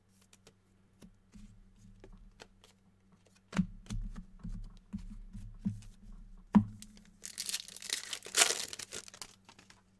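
Basketball card pack wrappers being torn open and crinkled, with a few knocks and taps from the handling. The loudest crackly tearing comes about two thirds of the way through.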